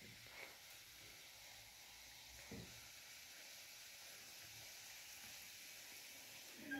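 An oiled roti sizzling faintly inside a closed electric roti maker: a steady, quiet hiss. There is a soft knock about two and a half seconds in and a sharper clack near the end.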